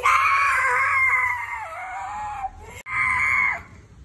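Baby letting out a long, high-pitched squeal that sags slightly in pitch, followed about three seconds in by a second, shorter squeal.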